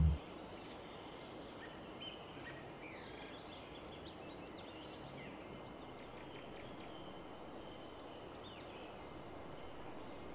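Faint outdoor ambience with birds chirping and calling intermittently. A low synth drone cuts off just as it begins.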